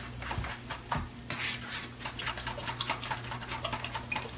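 Eggs, milk and shredded cheese being stirred in a mixing bowl to break up the yolks: a utensil clicks rapidly and irregularly against the bowl.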